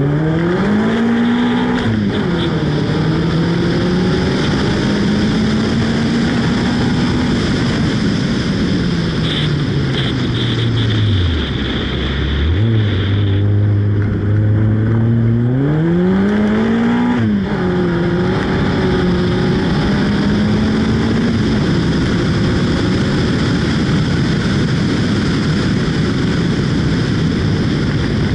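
Renault Clio's engine under way: revs climb and drop abruptly at a gear change, hold steady, then fall to a low steady note. The pattern repeats with a second climb and gear change, then the engine settles at a steady speed.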